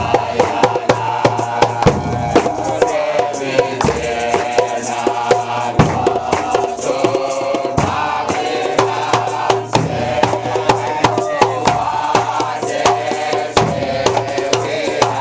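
A group of men chanting in unison to Nyabinghi drumming. A large bass drum and smaller hand drums beat a steady rhythm, with hand claps mixed in.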